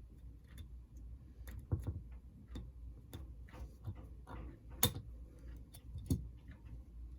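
Small, irregular clicks and taps of model locomotive parts being handled and fitted together by hand, with two louder knocks about five and six seconds in.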